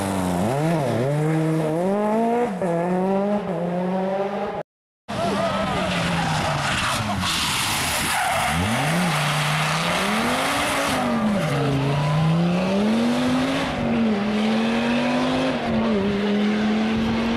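Rally car engines at full throttle on a stage. The first is a Ford Fiesta RS WRC's 1.6-litre turbocharged four-cylinder, its revs climbing in quick steps through upshifts. After a brief dropout about five seconds in, other rally cars pass, their revs falling and rising through corners.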